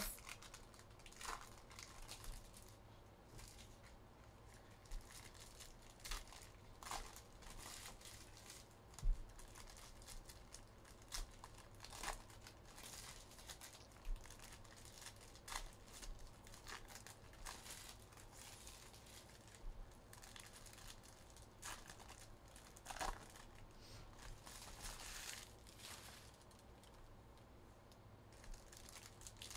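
Faint crinkling and tearing of the plastic wrapping on a 2022-23 Upper Deck Synergy hockey card box and its packs as they are opened, with scattered light clicks and taps from handling.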